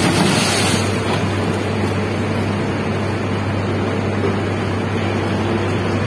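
Sugar mill cane-unloading machinery running with a steady low drone and hum. In the first second there is a brief rush of rustling as sugarcane drops from the crane's grab.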